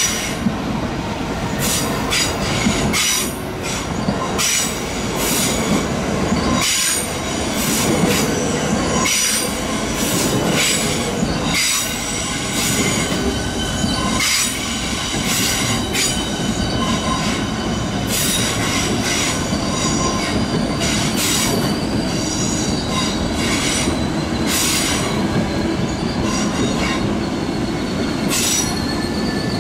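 ÖBB Nightjet coaches rolling through curved points, their wheels squealing in high tones that come and go over a steady rumble. Sharp clacks repeat throughout as the wheels cross the rail joints and switches, and a steadier squeal sets in near the end.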